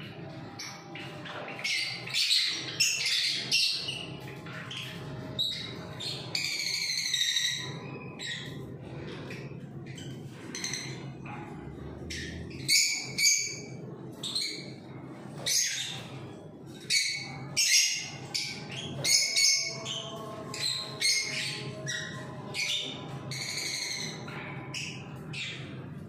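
Many small cage birds in stacked breeding cages calling at once: repeated high, sharp chirps and squawks in irregular bursts, over a steady low hum.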